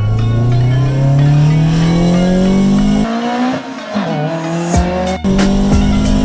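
Toyota 4A-GE 20-valve Blacktop four-cylinder on individual throttle bodies revving up under acceleration, its pitch rising steadily for about three seconds. It then falls off suddenly and dips, as on a lift or gear change, before coming back at a steady higher pitch. Music plays along with a beat.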